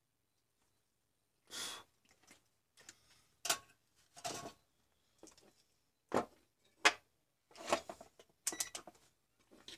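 Tools and small parts being handled on a wooden workbench: an irregular string of short knocks, clicks and clatters as a solder spool, a soldering iron and tweezers are put down or picked up and a plastic charger housing is shifted. Quiet for the first second and a half.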